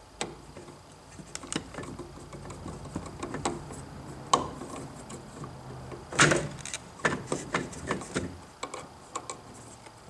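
Metal outlet cover plate clicking and scraping against a metal electrical box as it is fitted and its center screw is turned with a screwdriver. Irregular clicks and knocks, with the loudest cluster about six seconds in.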